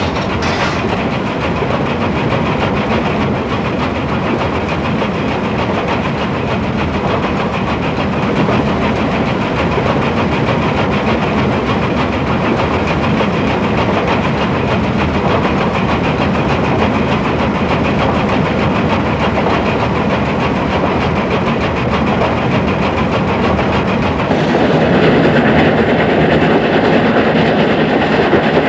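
JNR class C62 steam locomotive running at speed, heard from on board: a loud, steady din of exhaust, running gear and rail clatter that grows louder about 24 seconds in.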